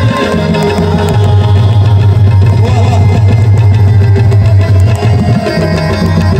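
Balochi folk music: a harmonium playing a sustained melody over a steady hand-drum rhythm, an instrumental passage with little or no singing.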